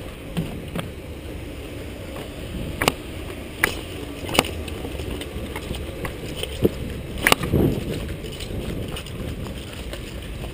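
Wind rumbling on a GoPro's microphone, with a few sharp clicks or knocks scattered through the middle, several of them about three-quarters of a second apart.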